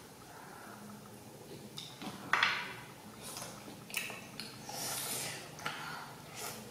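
Close-miked eating of green orange wedges: several separate crisp, wet bites and chews, the loudest about two and a half seconds in.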